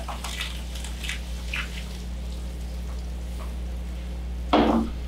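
Butter melting in a hot, preheated frying pan, sizzling and foaming with scattered small crackles over a steady low hum. A brief louder burst of noise comes about four and a half seconds in.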